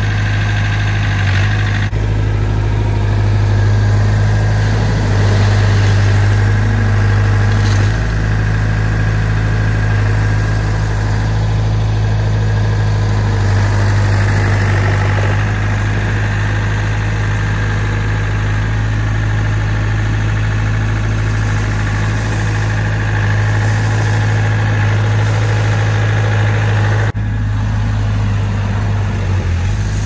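JCB skid steer loader's diesel engine running steadily, a loud low drone, while the machine drives and works. The sound changes abruptly twice, about two seconds in and near the end.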